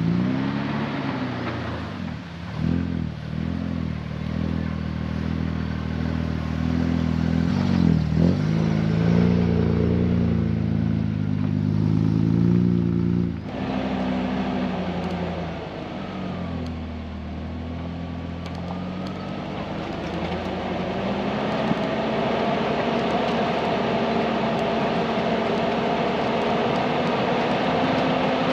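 Toyota LandCruiser 80 Series engine driving off, its revs dipping and rising several times in the first half. From about halfway it runs more steadily along a dirt track, its pitch slowly climbing toward the end.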